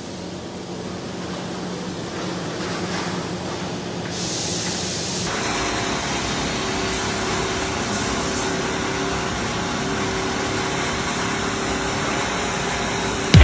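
Steady hum and hiss of tire-shop machinery. About four seconds in a hiss starts, and a second later a louder, even machine noise with a higher hum takes over and runs on steadily.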